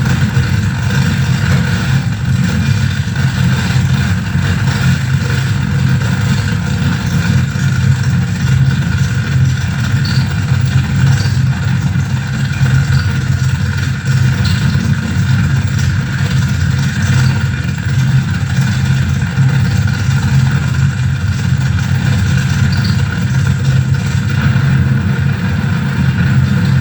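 Harsh noise drone from a mixer feedback rig with reel-to-reel tape, reverb and bass: a dense, unbroken wall of noise with a heavy low rumble and steady feedback tones above it.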